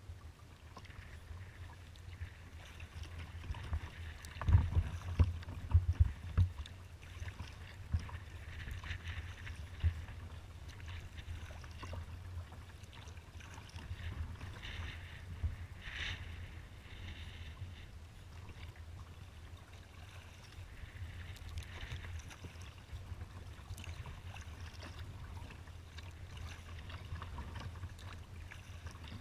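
Water slapping and splashing against a kayak's hull as it moves through choppy water, with wind rumbling on the deck-mounted microphone. A burst of louder knocks comes about four to six seconds in.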